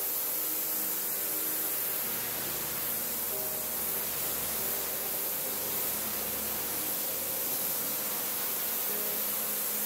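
Pressure washer jet spraying steadily onto a soaked rug, a continuous even hiss of water striking and rinsing the pile.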